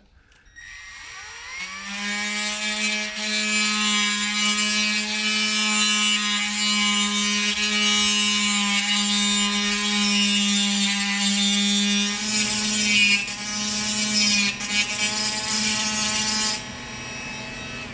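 Handheld rotary tool spinning up with a rising whine, then running steadily at speed while its carbide bit grinds down the plastic lip of an instrument-cluster lens, a rasping cutting noise over the motor's hum. Near the end the grinding stops and the tool runs on more quietly.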